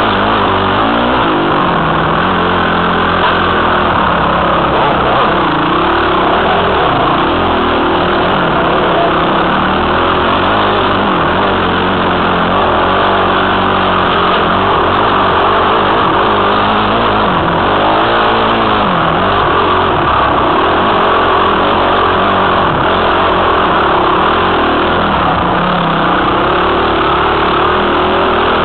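Dirt bike engine revving up and falling back again and again as the bike is ridden over a rough trail, heard from a helmet camera with a steady rush of noise over it.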